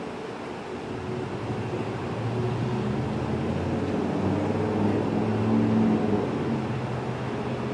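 A low engine hum with a few steady pitched tones, growing louder about two seconds in and easing slightly near the end.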